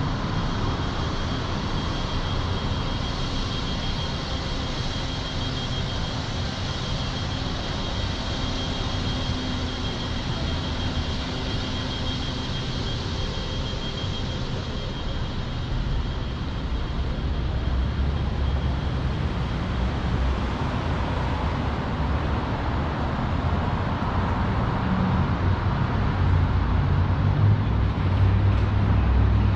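Steady city street traffic noise, with a thin high whine in the first half and a deeper vehicle rumble building over the second half.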